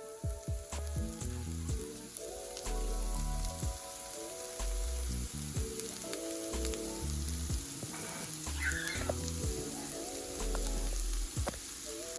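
Chopped onion and bell pepper sizzling in hot coconut oil in a pot, a steady frying hiss. Background music with a stepping bass line plays over it.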